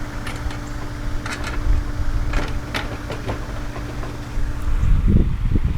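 Loose metal bolts clinking a few times as they are handled, over a steady low engine-like hum. Near the end, heavier low rumbling thumps.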